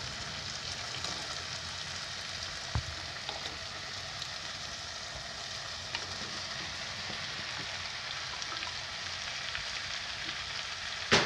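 Spiced onion-tomato masala with chopped summer squash (chappan kaddu) sizzling steadily in a pan, with one light knock about three seconds in.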